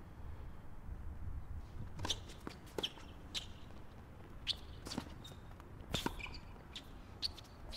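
Tennis rally on a hard court: a series of sharp racquet-on-ball hits and ball bounces, roughly one every half second to a second, over a low steady background rumble.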